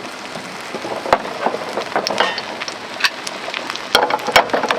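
French toast sizzling in a frying pan, a steady hiss with a few sharp clicks and taps, the strongest near the end.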